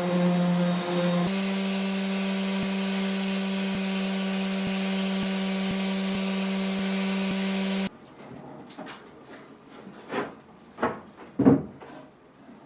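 An electric power tool running steadily at an even pitch, which stops abruptly about eight seconds in. A few wooden knocks and handling sounds follow, the loudest near the end.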